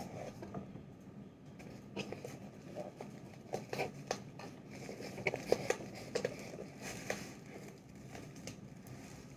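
Crinkling and rustling of bubble wrap and cardboard packaging as a wrapped book is handled and lifted out of a box: a run of light, irregular clicks and crackles.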